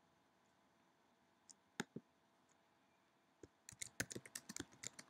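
Computer keyboard being typed on. A few separate key clicks come within the first two seconds, then a quick run of typing starts about three and a half seconds in.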